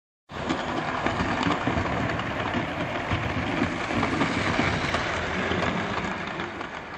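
OO gauge model trains running on the layout's track: a steady whirring rumble of motors and wheels with fine rapid clicking, fading out near the end.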